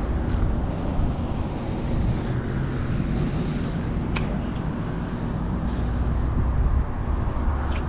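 Steady low rumble of a running motor with wind on the microphone; a sharp click about four seconds in.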